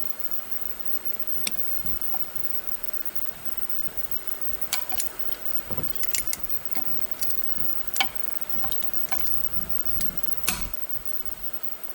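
Scattered sharp metallic clicks and clinks of hand tools and small metal parts being handled and set down, thickest in the middle and latter part, over a steady hiss.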